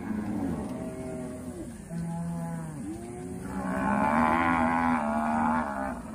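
A herd of cattle mooing, with several calls overlapping at different pitches. About three and a half seconds in, one loud, drawn-out bellow holds for about two seconds.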